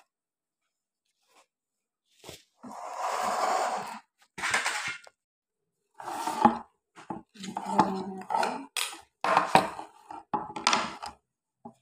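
Fish steaks in plastic wrap being handled in a stainless steel basin: plastic rustling and irregular clunks and clinks against the metal, starting a couple of seconds in.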